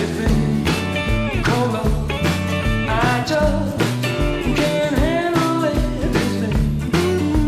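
Rock-and-roll band music: an electric guitar solo full of string bends over a walking bass line and drums.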